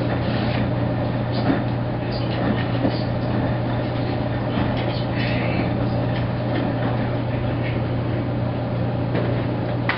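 Maytag SoftMount commercial front-load washer running mid-cycle: a steady hum with scattered light knocks and clicks.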